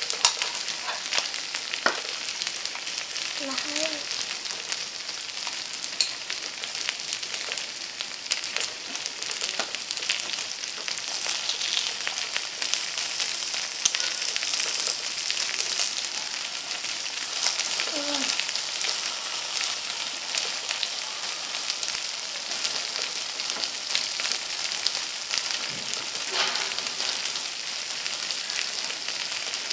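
Beef, potato slices and green beans sizzling steadily on a hot grill pan, a continuous high hiss with many small pops.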